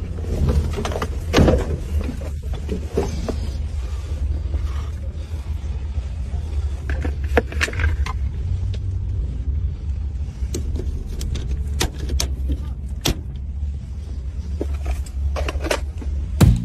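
Steady low rumble of a car heard from inside its cabin, with scattered clicks and knocks.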